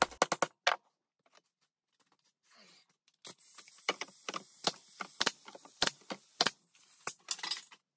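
Sharp taps and clicks of tools working a stack of MDF discs on a steel rod: a cluster of hammer taps at the start, then after a short pause a steady run of clicks about two a second over a faint hiss.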